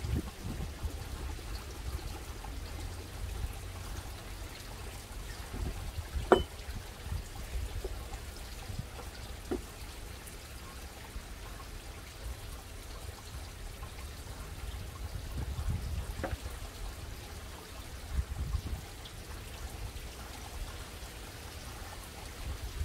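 Water trickling and splashing in a backyard fish tank, steady throughout, with one sharp knock about six seconds in and a few fainter taps later.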